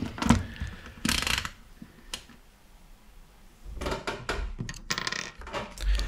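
Sharp clicks and knocks of the vacuum's small plastic switch parts being handled: a few clicks in the first two seconds, a short pause, then a cluster of clicks and rustling and a low thump near the end.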